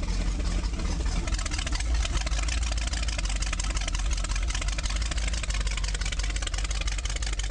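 Ford 351 cubic-inch marine V8 running steadily on a test stand, exhausting through its water-cooled wet exhaust.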